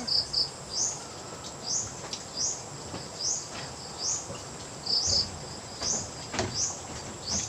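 An insect chirping over and over, a short high chirp repeating evenly a little more than once a second, with a few faint knocks in the background.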